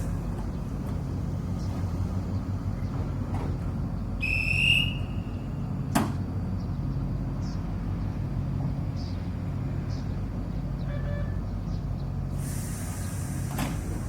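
Train at the station giving a steady low hum, with a short high whistle about four seconds in and a sharp knock about six seconds in.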